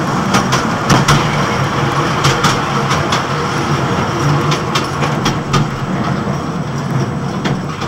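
Trackless road tourist train running at walking pace: a steady low engine drone with irregular clicks and rattles from the open wagons.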